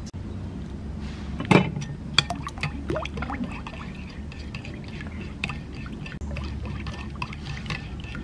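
Metal spoon stirring a thin lemon-chili dipping sauce in a ceramic bowl: liquid sloshing with scattered clinks of the spoon against the bowl, the loudest knock about a second and a half in.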